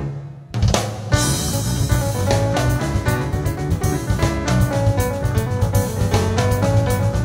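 Live jazz trio of grand piano, bass guitar and drum kit. The band stops dead for about half a second, then comes back in together, with a busy piano line over a steady bass and drums.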